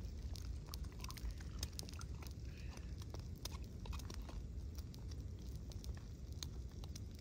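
A spoon clinking and scraping irregularly in a small cup as a hot mocha is stirred, over a steady low rumble of wind on the microphone.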